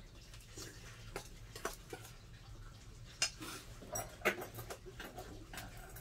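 Firewood crackling in a wood-burning stove: irregular sharp pops over a low steady hum, the loudest about three and four seconds in.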